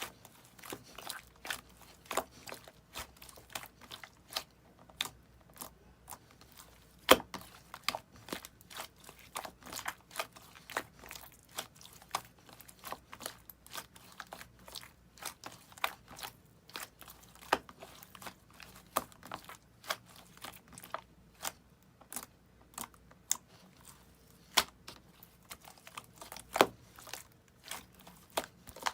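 Green slime being pressed and squeezed by hand, giving irregular sharp clicks and pops about one to three a second, with two louder pops, one about a quarter of the way in and one near the end.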